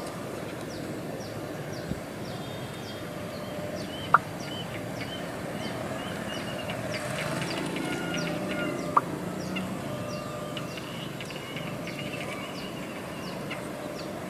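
Diesel locomotive approaching slowly, its engine a low rumble that swells about halfway through. Short high chirps repeat throughout over it, with two sharp brief pips, one about four seconds in and one about nine seconds in.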